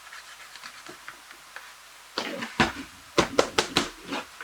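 Hard plastic handling noise from a mechanical keyboard being cleaned: a few light clicks, then, about two seconds in, a run of sharp knocks and rattles with a dull thud.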